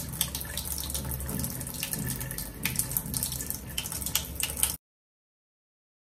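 Water running from a tap and splashing over the plastic floor-brush head of a WAP upright vacuum as it is rinsed in a sink, with frequent small splashes. The sound cuts off abruptly near the end.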